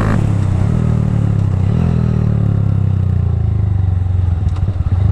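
Honda Grom (MSX125) single-cylinder engine running while riding. Its pitch steps up about two seconds in, then slowly falls away as the bike slows.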